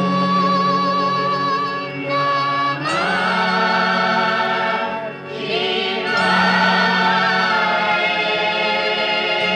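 Choir singing long held notes with vibrato over an orchestra in an old Hindi film song, the chord shifting upward about three seconds in.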